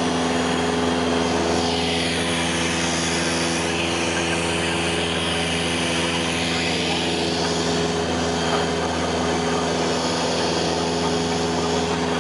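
Cessna 172's piston engine and propeller droning steadily in flight, heard from inside the cabin, with a constant low hum under a hiss whose upper part slowly swells and fades.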